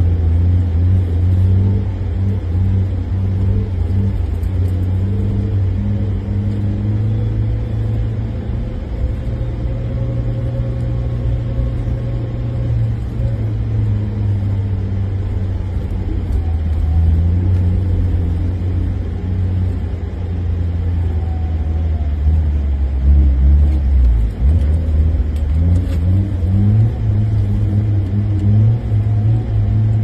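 Car engine heard from inside the cabin, a steady low drone whose pitch shifts up and down as the car works through deep snow. The engine note drops briefly about three-quarters of the way through, then climbs again.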